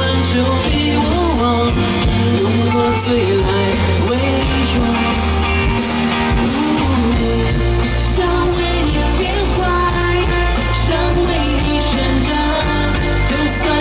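Live pop-rock performance: a woman singing lead into a microphone over a full band with heavy bass and a steady drum beat, heard through the PA.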